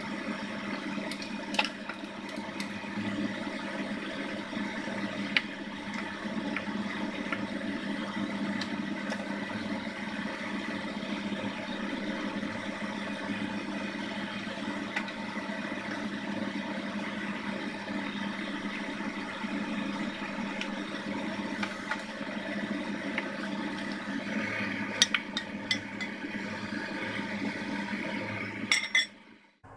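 Steady noise of a stovetop pot of broth simmering over the burner, with a few light clicks. Near the end, a lid is set onto the pot with some clinks of metal.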